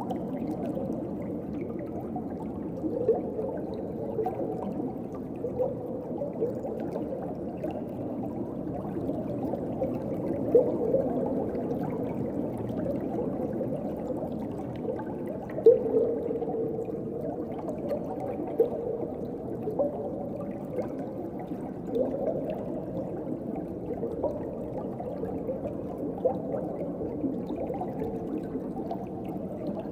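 Underwater ocean ambience: a steady, muffled wash of moving water with short bubbling blips every few seconds, the strongest about halfway through.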